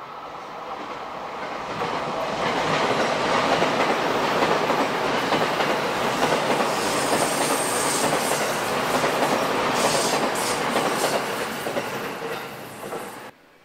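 Electric train passing close by on a curve, its wheels clattering over the rail joints, growing louder over the first two seconds and then holding steady. A high squeal of wheels on the curve comes through in the middle, and the sound cuts off abruptly near the end.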